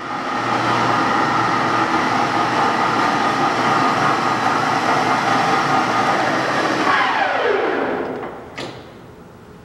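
Servo SE1640 engine lathe's spindle and headstock gearing running at 1250 RPM, a steady whine made of several tones. About seven seconds in the pitch falls away over a second or so as the spindle is stopped and spins down, then a faint click near the end.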